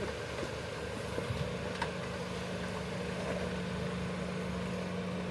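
Off-road vehicle's engine running low and steady as it crawls slowly over a rocky ledge, with a steady hum settling in about a second and a half in.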